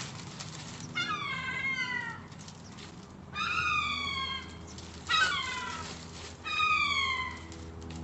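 Gulls calling: four drawn-out calls, each about a second long and falling in pitch.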